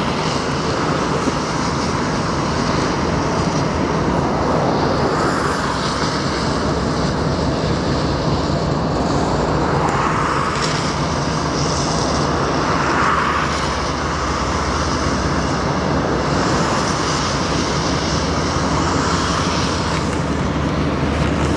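Diesel locomotive engines running steadily, a low hum with an even rumble over it.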